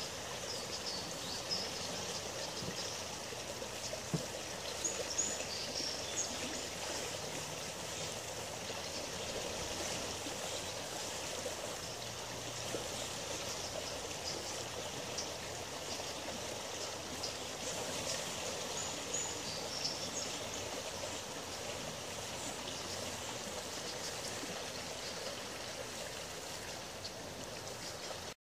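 Shallow river water running over a stony riffle: a steady rush and trickle.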